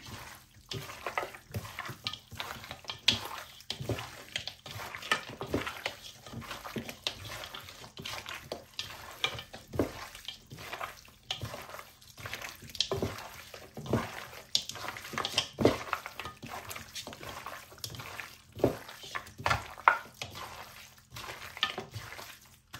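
Hands kneading and squishing raw pork pieces in a thick spiced marinade of ginger-garlic paste and gram flour: irregular wet squelches with light clicks and knocks, several a second.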